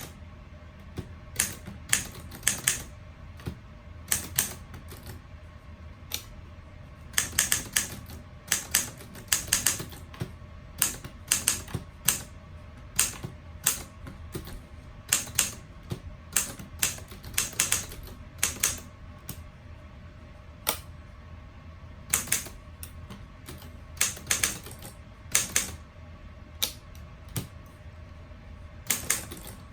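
Typing on a 1947 Underwood standard desktop typewriter: the typebars strike the platen in sharp, irregular clacks, sometimes in quick runs of several keys, sometimes singly with short pauses between.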